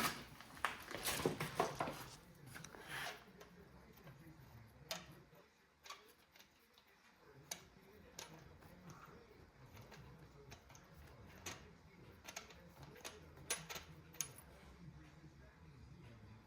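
Faint, irregular metallic clicks and clinks of a ratchet and socket removing a spark plug from an LS V8 cylinder head. The clicks are thickest in the first few seconds, then come as scattered single ticks.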